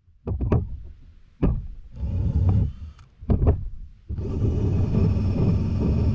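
Drill spinning a wire brush against a rusty steel blade to strip the rust, in four short bursts and then steadily from about four seconds in.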